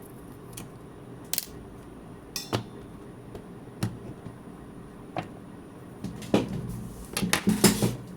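Small tools clicking and tapping against a smartwatch's hard case during a teardown: a few separate clicks, then a quick cluster of them near the end, over a steady low hum.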